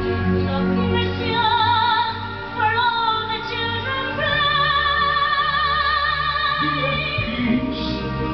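Musical-theatre song: a female singer holding long notes with strong vibrato over a steady accompaniment, playing from a television.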